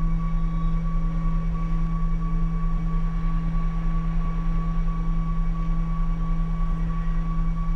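Steady electronic drone: a low hum with a steady high tone above it and a softer tone pulsing on and off about twice a second.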